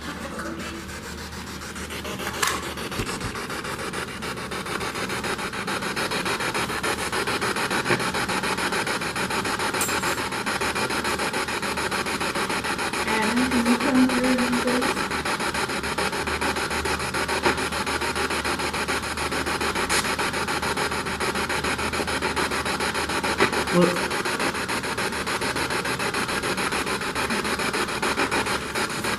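Spirit box scanning through radio stations, giving a loud, steady hiss of radio static that fades up over the first few seconds. A brief pitched snatch cuts through about halfway.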